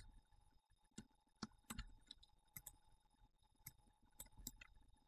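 Faint, irregular clicks of a computer mouse and keyboard, about eight in five seconds, over quiet room tone.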